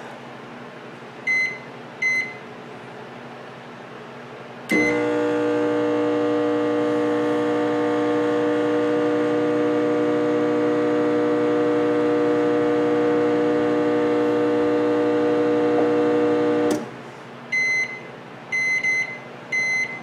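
Cetron HMC007BKW microwave oven: two keypad beeps, a third as it starts, then about twelve seconds of steady running hum that cuts off, followed by a series of short end-of-cycle beeps. The oven runs but does not heat, a fault the repairer puts down to the capacitor, magnetron or fuse.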